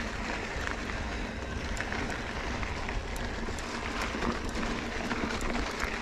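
Mountain bike riding uphill on a dirt trail: tyres on loose dirt and gravel under a steady low rumble, with scattered small clicks and ticks.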